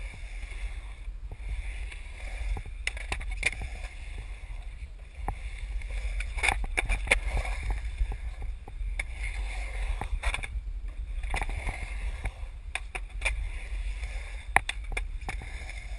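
Skateboard wheels rolling and carving on a smooth concrete bowl, a steady rumble broken by frequent sharp clicks and knocks from the board and trucks.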